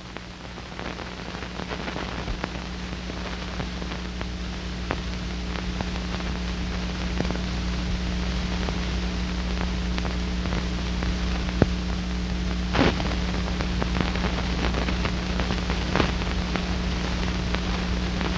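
Steady hiss and low electrical hum with scattered faint clicks and crackles: the background noise of an old film soundtrack transferred to tape, with no other sound effects.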